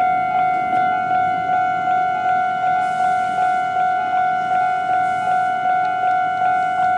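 Japanese railway level-crossing alarm ringing its standard electronic tone at a fast tempo: a pitched 'ding' repeated evenly, a little under three strikes a second.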